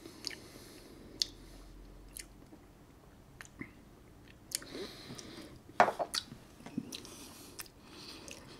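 Quiet mouth sounds of someone savouring a sip of single malt whisky: lip smacks, tongue clicks and breaths through the mouth. About six seconds in come a few sharper knocks as the small tasting glass is set down on the table.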